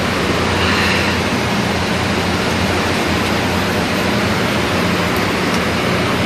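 Loud, steady industrial noise, an even rushing hiss over a low machine hum.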